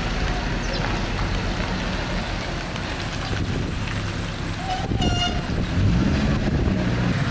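Minibus engine running as the bus drives past and turns, with a short horn toot about five seconds in.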